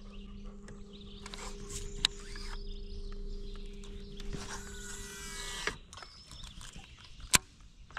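Electric trolling motor humming steadily, then cutting off about six seconds in. Around five seconds in a casting reel's spool whirs with falling pitch as a lure is cast, and a sharp click comes near the end.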